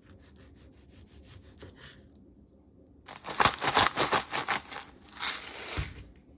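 Chef's knife sawing through a ripe tomato on a bamboo cutting board in quick, soft strokes. About three seconds in, a louder run of crunchy grinding from a hand seasoning grinder over the tomato slices, lasting about three seconds.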